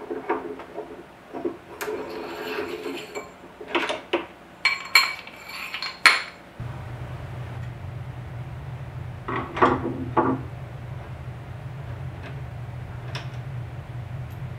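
Metal lathe parts clinking and clattering as a collet closer is worked loose and removed from a lathe headstock, with a cluster of sharp ringing clinks early on and a few more later. A steady low hum starts abruptly about six and a half seconds in.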